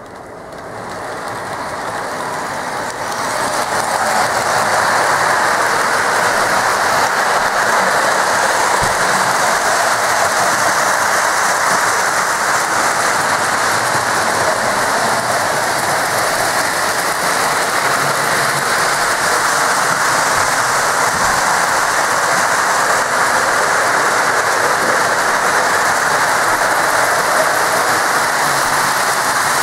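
Several Lionel O-gauge model trains running at once: a steady, even rolling rumble and clatter of wheels on the track, which rises over the first few seconds and then holds.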